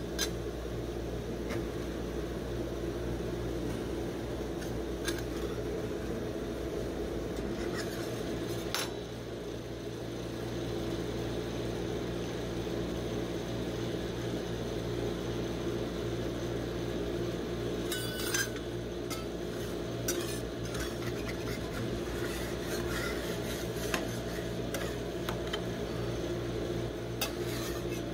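Metal spatula scraping, tapping and clinking on the frozen steel plate of a rolled ice cream machine, with scattered sharp clicks, over the machine's steady low hum.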